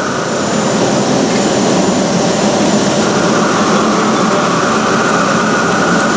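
Dörries SD 600/6500 vertical turning lathe with its 6.5 m faceplate table spinning fast on a speed test. The table drive gives a steady, loud mechanical running noise.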